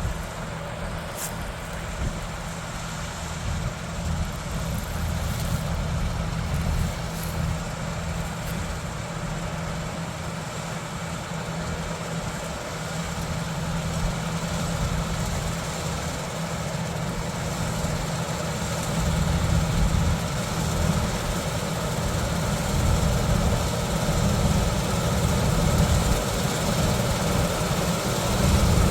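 John Deere 9750 combine's diesel engine and threshing machinery running steadily while cutting soybeans, a constant low drone that grows louder over the last third.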